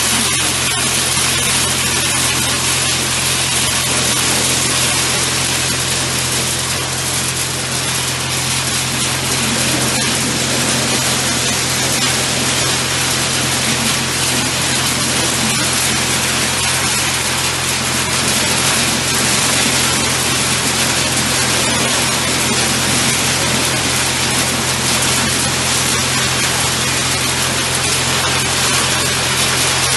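Pine cone processing machine running, a loud, steady mix of mechanical hum and rushing noise from the cones being crushed and threshed, with no change in speed.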